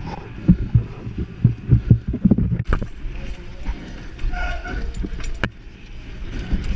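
Wind buffeting a helmet-mounted camera's microphone, with uneven knocks and rattles from a mountain bike on a dirt course and a couple of sharp clicks. A voice is heard briefly about four and a half seconds in.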